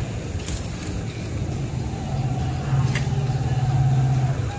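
A motor vehicle's engine running nearby as a steady low drone, growing louder a little over halfway in, with a couple of faint clicks.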